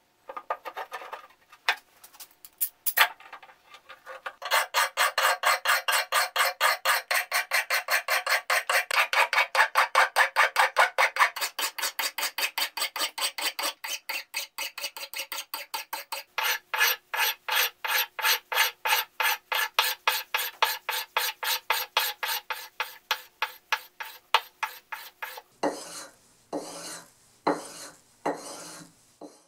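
Hand file scraping along the edge of a mid-1800s wrought-iron froe blade while the edge is sharpened, a few scattered strokes at first and then rapid, even strokes of about five a second. Near the end come a few slower, fuller strokes of a flat sharpening block rubbed along the edge.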